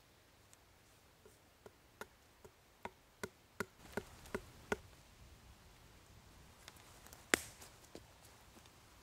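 A hand tool striking wood: about ten sharp knocks at a steady pace of two or three a second, followed a couple of seconds later by a few lighter taps and one louder crack.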